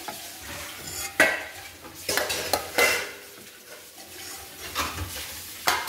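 A metal utensil knocking and scraping against a stainless-steel mixer-grinder jar as cooked tomato, onion and cashew mixture is spooned in. Several sharp clinks come between softer scraping.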